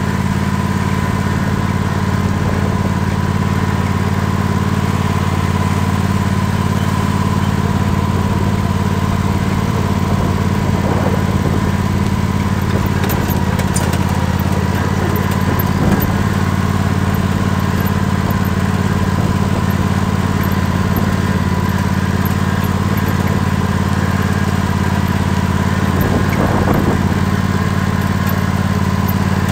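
Tractor engine running steadily while the tractor drives along, with a thin steady whine over the engine's low drone.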